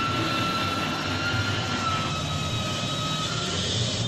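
Working model railway layout running: a steady mechanical whirr with a thin high whine that drifts slightly lower in pitch and fades out about three seconds in.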